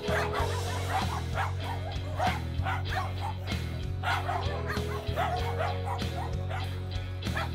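Many street dogs barking and yipping in short, irregular calls, over background music with a low sustained drone.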